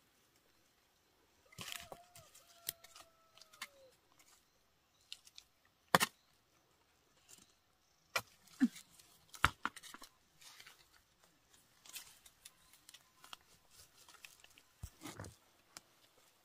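Machete blade chopping and scraping into soil and roots, with crunching and tearing as plants are pulled out by the roots: irregular strikes and scrapes, a few of them sharper and louder.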